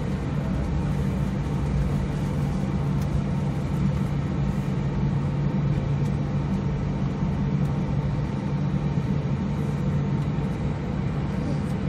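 Steady jet airliner cabin noise during taxi: a constant low engine hum with an even rush over it.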